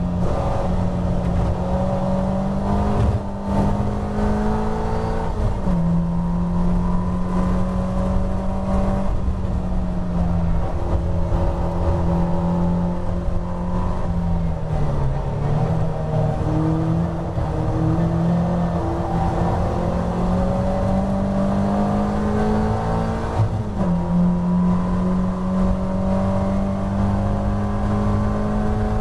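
Caterham Roadsport race car's four-cylinder engine, heard from on board while pulling hard through the gears. The pitch climbs steadily and drops sharply at upshifts about six seconds in and again near the end. Around the middle it dips and then recovers through a corner.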